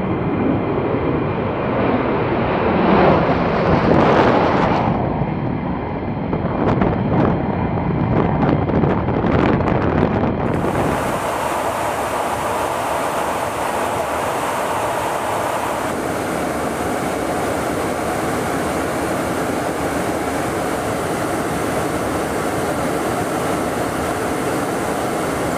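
F-15E Strike Eagle's jet engines running at high power as it takes off, swelling and crackling. About ten seconds in, this cuts abruptly to the steady rushing noise of airflow inside a refuelling tanker in flight.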